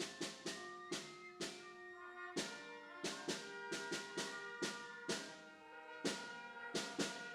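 Drum music: a series of sharp, unevenly spaced drum strikes, each ringing on with pitched tones.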